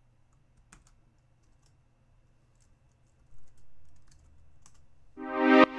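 Faint computer keyboard typing and clicks. About five seconds in, a synth string pad chord starts, its volume ducking in a rhythmic pulse under sidechain compression keyed from a kick drum.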